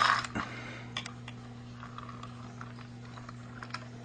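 A short loud rush of noise at the very start, then scattered light clicks and taps over a steady low hum.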